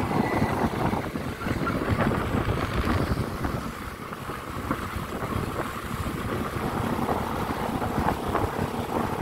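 Wind buffeting the microphone over the steady rushing noise of a moving vehicle.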